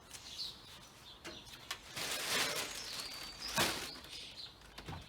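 Garden birds chirping briefly, among a rustling noise that lasts about a second and a half and a sharp click just after the middle.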